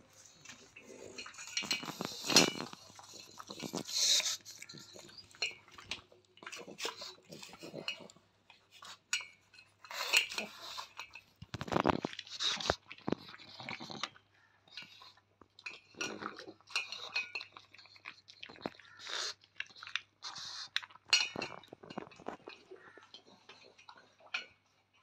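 A pug eating pieces of chapati from a stainless steel bowl: irregular chewing, with the metal bowl clinking as the dog noses into it.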